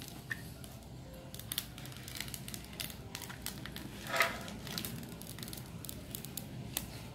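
Protective plastic film being peeled slowly off the clear visor of an LS2 Verso helmet: a run of faint crackles and ticks, with a brief louder rasp about four seconds in.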